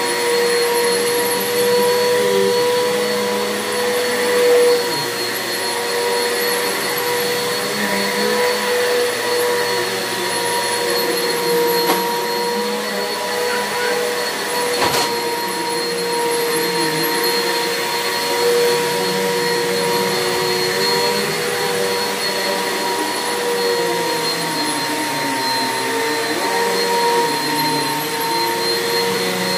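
Bissell 6583 upright vacuum cleaner running on carpet, its motor whine holding a steady pitch. A single sharp click about halfway through.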